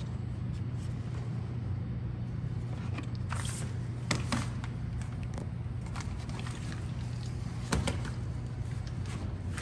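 Colamark A117H drum-wrap labeler running with a steady low motor hum, with a few sharp knocks about three and a half, four and eight seconds in.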